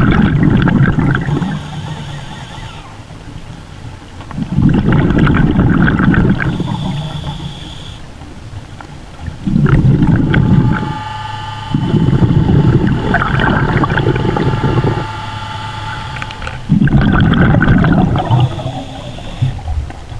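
A scuba diver breathing through a regulator underwater. Each exhalation releases a burst of bubbling that lasts two to three seconds, about five times, with quieter inhalations through the regulator between them.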